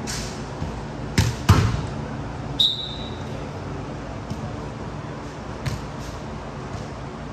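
A ball struck hard twice, about a third of a second apart, then a brief high squeak, followed by a few lighter knocks over steady game background noise.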